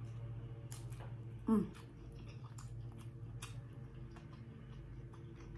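Close-up eating sounds of fingers being licked and dipped into a bowl of seafood boil sauce: scattered soft wet clicks and squishes over a steady low hum. About a second and a half in there is a short voiced "mm" with falling pitch.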